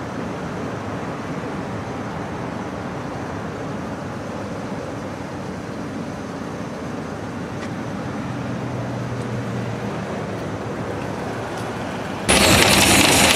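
Steady road-traffic noise around a wet parking lot, with a faint low hum of a passing vehicle partway through. About a second before the end, a much louder dense hiss cuts in abruptly: heavy storm rain beating on the car.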